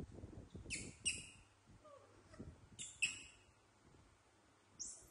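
Baby macaques giving short, high, squeaky calls: two quick pairs, then a single call near the end. Soft rustling and handling noise in the first second.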